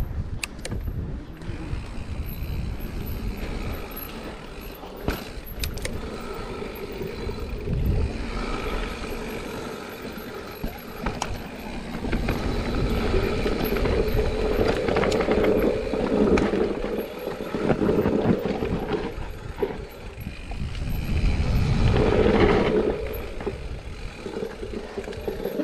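Mountain bike riding down a dirt singletrack: tyres rolling and crunching over dirt and leaves, with the chain and frame rattling and knocking over bumps. It gets louder about halfway through and again near the end.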